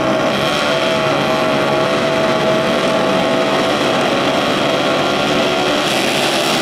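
A pack of flat-track racing motorcycles with their engines revving together on the start line, held at a steady, high pitch. Near the end the steady note gives way to a harsher, brighter sound.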